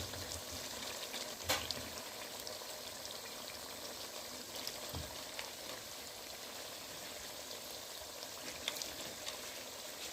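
Chicken pieces frying with spices in oil and margarine in a pot, a steady sizzle, with a couple of short sharp clicks about a second and a half in and near the end.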